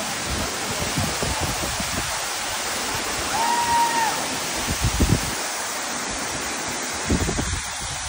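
Tall waterfall pouring into its plunge pool: a steady rushing hiss of falling water. A few low rumbles come about five and seven seconds in, and a brief steady tone sounds near the middle.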